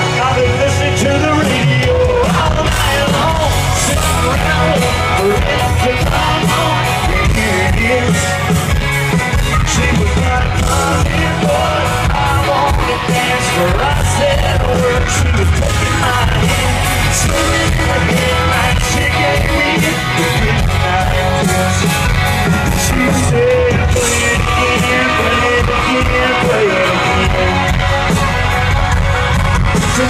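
Live country band and male lead singer performing, heard loud from within the concert crowd, with fans yelling along.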